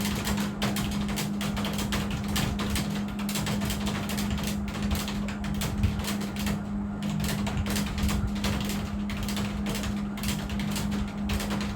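Fast typing on a computer keyboard: a dense, continuous stream of key clicks over a steady low hum.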